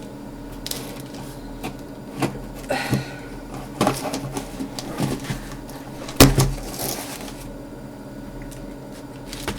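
Hands opening a mail parcel with a CD album inside: rustling, scraping and knocks of the packaging, with a sharp knock about six seconds in.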